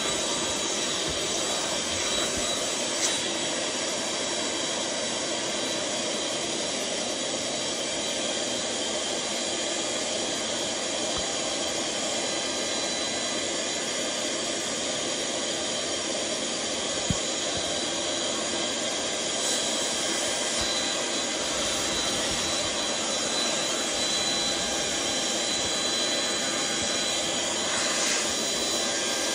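Electric air blower running steadily, forcing air through a hose into a large vinyl inflatable. It is a constant rushing hum with a faint whine, and there are two brief taps, a few seconds in and again about halfway.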